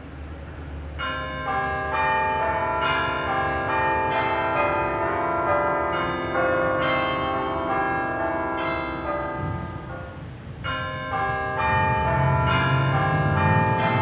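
Music of struck, bell-like tones that ring on and overlap, entering about a second in, with a low part joining near the end.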